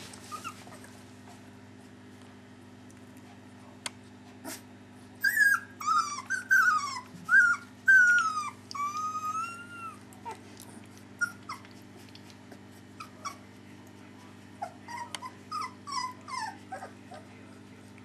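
Three-week-old Dalmatian puppies crying in high-pitched whimpers: a run of loud, falling cries about five seconds in that lasts several seconds, then fainter short squeaks near the end.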